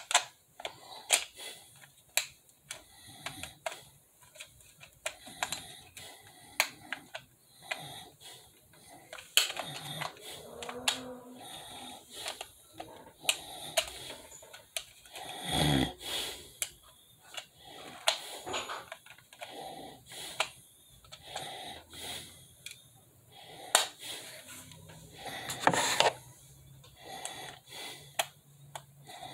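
Scattered small plastic clicks and taps from a toy RC bus remote control being handled and fiddled with, with the man's breathing now and then.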